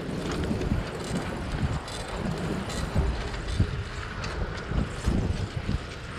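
Wind buffeting the microphone of a camera on a moving bicycle, an uneven low rumble over a steady hiss of passing air and road, with a few light clicks scattered through.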